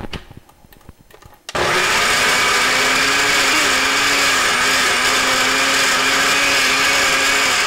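Blender switching on about a second and a half in and running steadily at a constant pitch, puréeing a wet tomatillo salsa of boiled tomatillos, onion, serrano chiles, garlic and cilantro.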